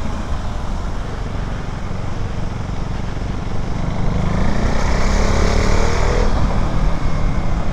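KTM Duke 390's single-cylinder engine running while riding in road traffic: a steady low rumble with road and traffic noise, growing louder about four seconds in.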